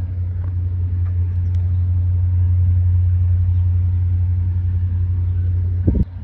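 Wind buffeting the phone's microphone: a steady, loud low rumble that swells and then drops away suddenly near the end, with a brief handling bump.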